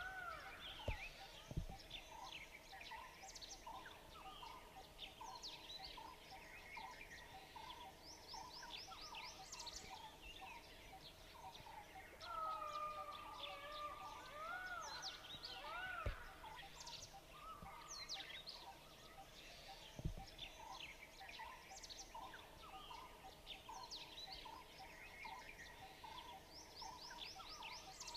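Forest birds calling and chirping together: many short quick chirps, sweeping whistles and trills over a soft note repeated again and again, with a faint steady tone beneath. A few sharp clicks stand out.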